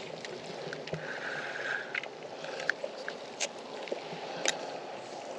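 Steady outdoor hiss with scattered sharp clicks and knocks, roughly one a second.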